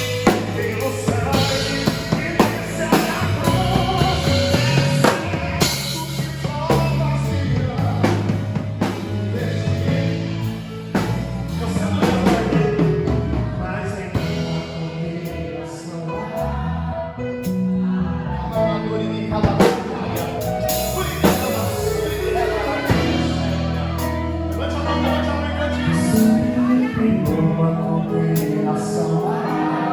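Live gospel worship band playing with a drum kit, with singing.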